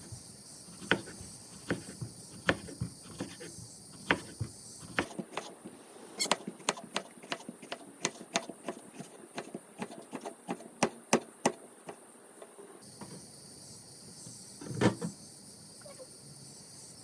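Kitchen knife chopping an aubergine into chunks on a cutting board: a string of sharp knocks, spaced out at first and then a quicker run of about three a second in the middle, with a heavier thump near the end.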